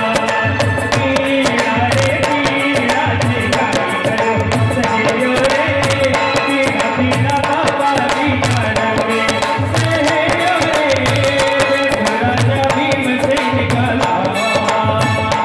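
Live devotional bhajan music with a steady hand-drum beat under a sustained melody, and hands clapping along in time.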